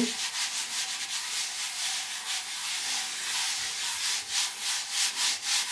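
A hand rubbing flour across a thin sheet of rolled homemade noodle dough on a wooden board: a steady dry brushing sound made of quick repeated strokes.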